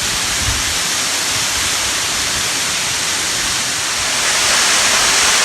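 Rocky Brook Falls pouring into its plunge pool: a steady rushing of falling water, getting a little louder near the end.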